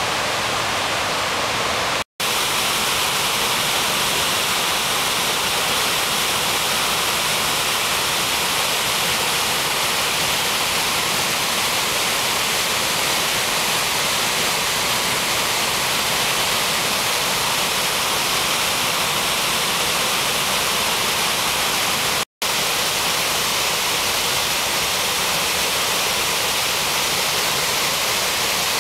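Waterfall pouring over a wide rock ledge into a rushing river: a steady, even roar of falling water. It drops out to silence for an instant twice, about two seconds in and about twenty-two seconds in.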